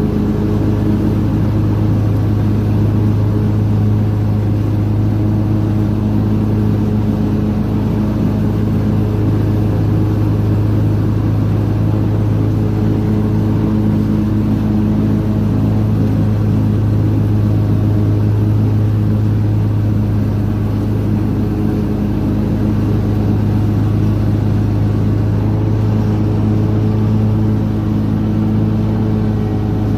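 Riding lawn mower engine running steadily at a constant speed while mowing, a low even hum with no change in pitch.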